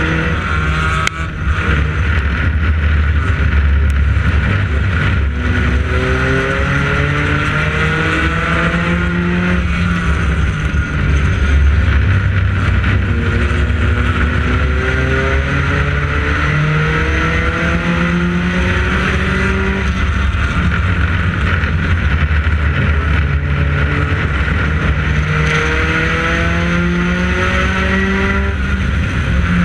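Onboard sound of a U-Car class race car at racing speed on a short oval: its engine's pitch climbs slowly over several seconds and then drops back, about every ten seconds, over a heavy low rumble.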